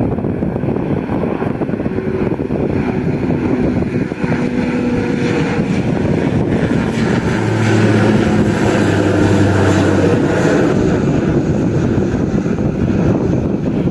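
De Havilland Dash 8 Q400 turboprop on its takeoff, its two Pratt & Whitney PW150A engines and six-blade propellers making a steady low drone. A low propeller hum grows loudest about halfway through, then eases off.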